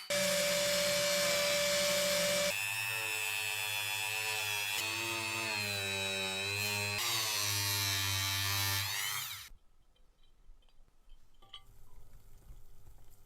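A small handheld power tool running at high speed, its pitch shifting and wavering as it bears on the work. It stops about nine and a half seconds in, leaving a few faint ticks.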